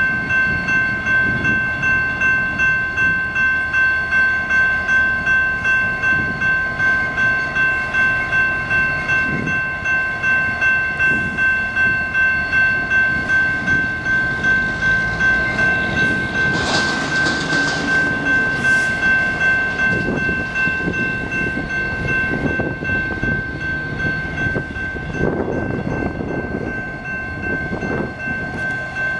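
A bell ringing steadily, about two strokes a second, over the low running of a BNSF diesel locomotive pulling a coal train toward the listener. The ringing is most even in the first two-thirds, and the train grows louder near the end.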